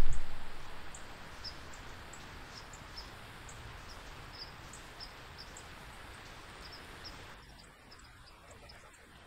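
A road flare burning against a fiberglass welding blanket: a steady, faint hiss with small high ticks scattered through it, quietening about seven seconds in.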